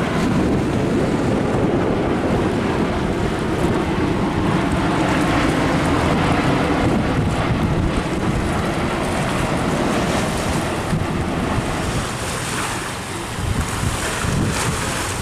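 Wind rushing over an outdoor microphone: a steady, loud, noisy roar with no clear tone, easing slightly about twelve seconds in.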